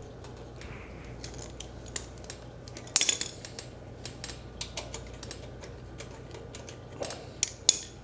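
Hand tools and small metal engine parts clicking and clinking as a bolt is fitted during reassembly of a small engine's carburetor and linkage. The clicks are irregular, with a sharper clank about three seconds in and two more near the end.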